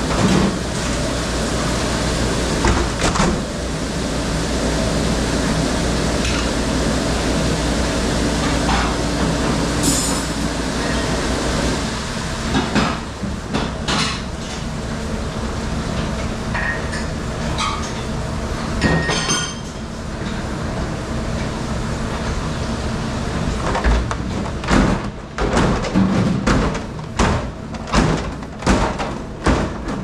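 Commercial dish machine running with a steady hum and wash noise, under scattered clatter of plastic dish racks and trays. Near the end comes a quick run of clacks as plastic trays are handled and stacked.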